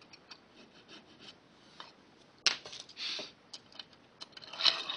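Small scraping and clicking sounds of hand work on the rails of an HO-scale model railroad turnout in its jig, with a sharp click about two and a half seconds in and short rasping strokes after it.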